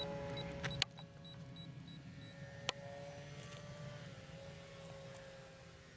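Electric outrunner motor and propeller of a model Tiger Moth biplane in flight: a faint, steady whine that dips slightly in pitch about four seconds in. A low rumble stops about a second in, and there are a couple of faint clicks.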